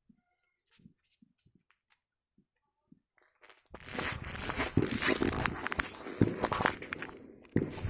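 Crunching footsteps with rustling, starting about halfway in after near silence and continuing with a brief lull near the end.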